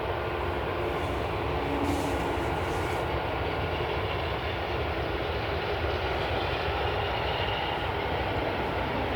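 Aircraft engine noise from a landing airliner: a steady rushing rumble with faint, thin whining tones over it.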